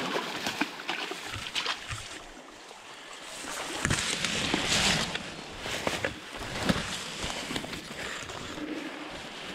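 Tall grass swishing and rustling as someone pushes through it on foot, with scattered footfalls and brushing knocks; the rustling is loudest about four to five seconds in.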